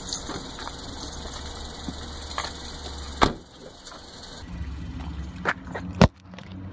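A car door opens and is shut with a sharp thump about three seconds in. Then a car engine runs with a low steady hum, heard inside the car, with two knocks near the end, the second one loud.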